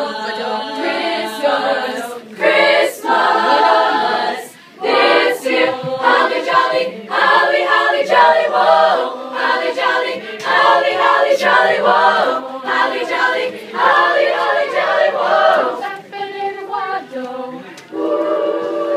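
A treble choir of girls' voices sings a Christmas carol unaccompanied, in phrases separated by short breaths.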